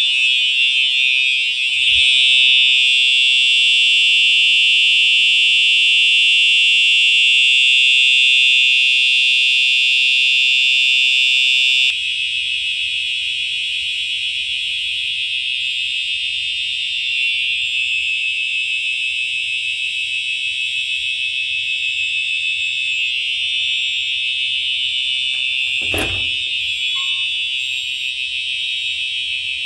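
Home fire alarm system's notification appliances sounding a loud, continuous high-pitched alarm tone after a pull station has been pulled. About twelve seconds in the sound drops a little and takes on a rapid flutter, and a single sharp knock comes about 26 seconds in.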